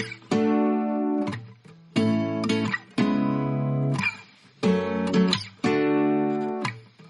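Background music: an acoustic guitar strumming chords, roughly one chord a second, each ringing and then fading before the next.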